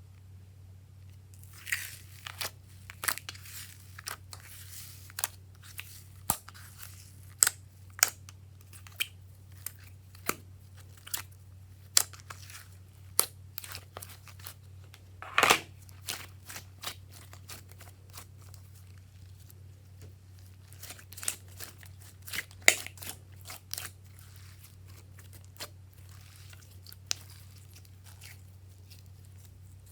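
Glossy slime being pressed and worked by hand, giving irregular sharp pops and crackles. There are stretches of crinkly rustling in between, and one loud pop near the middle.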